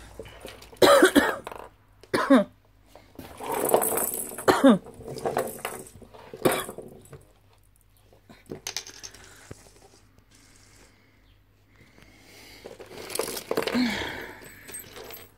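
A person coughing several times in short bursts that fall in pitch, with rustling and light clatter of cat toys and a cardboard box being moved about.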